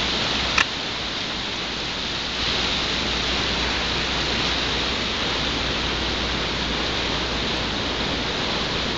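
Steady rushing of a mountain river running over rocks, with one short sharp click about half a second in.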